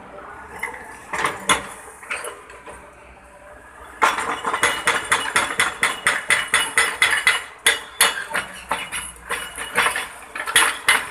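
Hydraulic breaker on a Volvo wheeled excavator hammering a concrete wall to bring it down. A few scattered knocks come first, then from about four seconds in a fast, steady run of sharp metallic blows, several a second.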